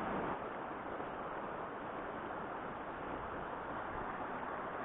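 Steady rushing of a mountain river's current, an even hiss with no distinct events.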